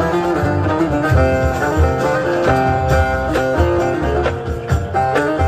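Instrumental passage of amplified live Turkish folk music: a quick plucked string melody over a steady low beat, with no singing.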